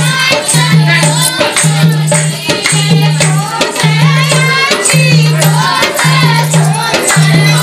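Dehati folk dance song: a voice singing over a quick jingling rattle beat and a low note that pulses about once a second.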